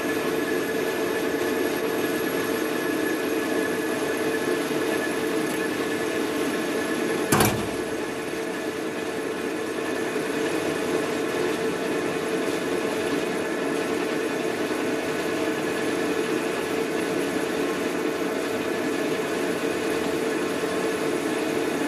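Metal lathe running, its tool turning down a spinning phosphor bronze (B101) bar: a steady hum with a thin higher whine over it. One sharp knock about seven seconds in.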